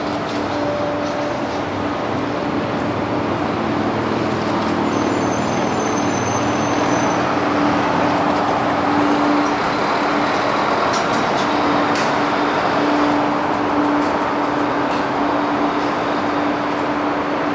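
Steady airport apron noise during an airliner pushback: the continuous hum and rush of a pushback tug and idling aircraft auxiliary power units, with one held steady tone, before the main engines are started.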